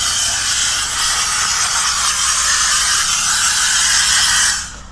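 Steam cleaner wand jetting steam over a truck cab's dashboard: a steady, loud hiss that cuts off about four and a half seconds in.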